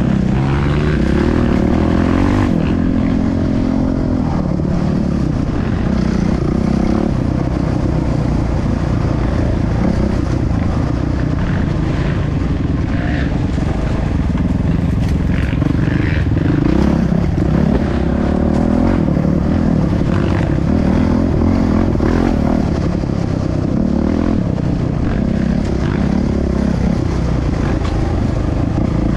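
Trail motorcycle engine running while riding, its engine speed rising and falling as the throttle is worked.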